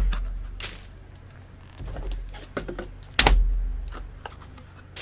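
Handling noise: a few sharp, scattered clicks and three low thuds.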